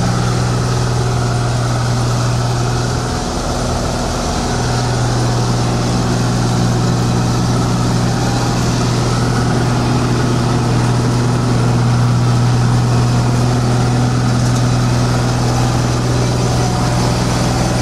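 Combine harvester running steadily at close range while harvesting corn: a loud, even engine hum with the steady noise of its working machinery, dipping briefly about three seconds in.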